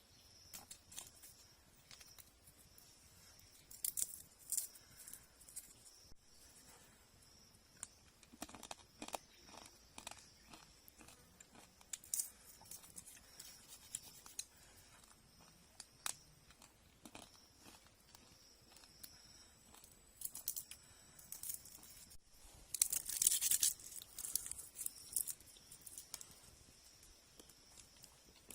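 Hands working dry plant material: scattered sharp snaps and crackles, with a longer tearing rustle about three-quarters of the way through.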